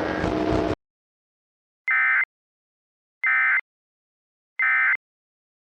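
Emergency Alert System SAME data tones: three short, identical, harsh buzzing bursts about a second apart, the end-of-message signal that closes the alert. Just before them a loud distorted passage cuts off abruptly under a second in.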